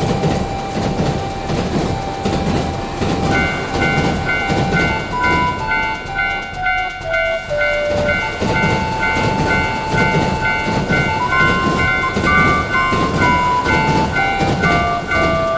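Cartoon train running past with a steady rumble and clickety-clack of wheels on rails. From about three seconds in, a Japanese railroad crossing bell rings its repeated 'kan-kan' strokes, about two a second.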